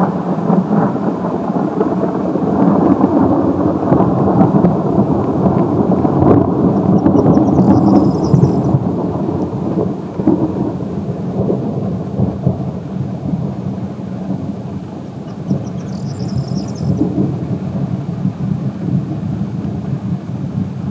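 Long rolling thunder from a nearby thunderstorm, rumbling continuously, loudest in the first half and easing off about halfway through.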